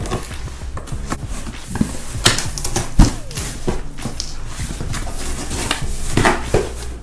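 Cardboard shipping box being opened by hand: flaps pulled back and folded with rustling, scraping and irregular knocks, the loudest a thump about three seconds in.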